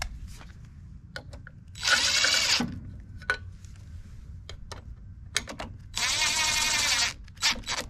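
DeWalt cordless driver whirring in two runs of about a second each, with two short trigger blips near the end and small clicks between, as it runs in the bolts of a lawn mower engine's valve cover.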